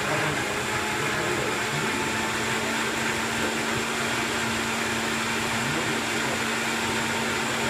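Countertop blender running steadily, blending pineapple, blueberries and mint with a little water into a thick smoothie: an even whirring motor noise with a constant low hum.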